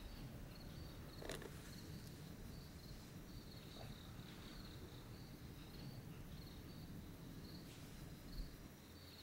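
Crickets chirping faintly in a steady, pulsing pattern over a low background rumble, with a brief click about a second in and a short dull thump near the end.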